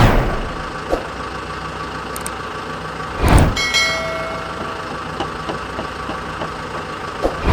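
Steady vehicle engine running sound, with a loud rushing burst about three seconds in and a few small knocks.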